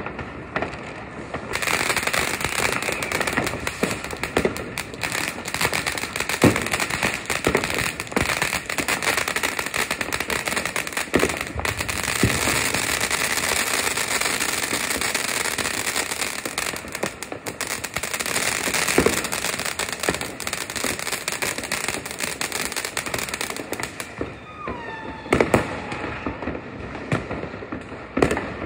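New Year's fireworks and firecrackers going off: a dense, continuous crackling with sharp bangs scattered through it. About three-quarters of the way in the crackling dies away, leaving a few separate bangs.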